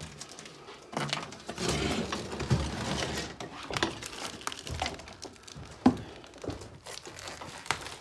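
Footsteps crunching and scraping over fallen ceiling plaster and debris, then a few separate sharp knocks and clicks.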